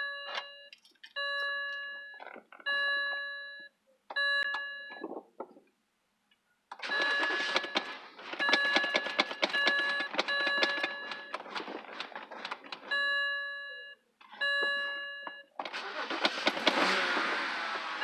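2006 BMW 325i engine cranking on the starter in two long attempts, the second near the end, while the dashboard warning chime repeats about once a second. The engine cranks but won't keep running.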